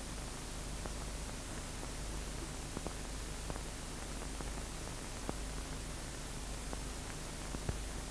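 Steady hiss and low hum of an old film soundtrack with no narration, broken by about half a dozen faint, scattered clicks.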